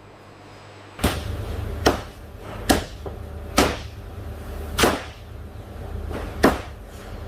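Six sharp strikes, about a second apart, over a low steady machine hum that starts about a second in.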